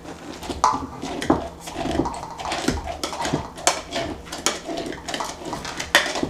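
Salted shredded cabbage being tamped down into a glass mason jar with a hand tamper: irregular wet, squishing knocks, about one or two a second, with the tamper and jar clinking. The pressing bruises the cabbage and draws out its juice to make the sauerkraut brine.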